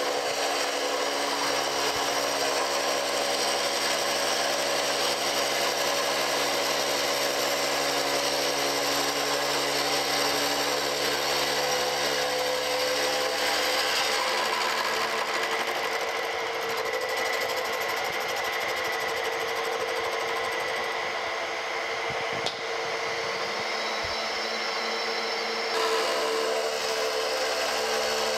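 Milling machine running with its face mill taking a deeper cut across a rough metal casting: a steady machining noise over the machine's running hum.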